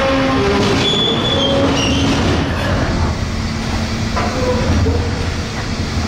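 Freight wagons rolling slowly on rails: a steady rumble with short, high-pitched squeals from the wheels in the first two seconds and a few clicks of wheels over rail joints around the middle.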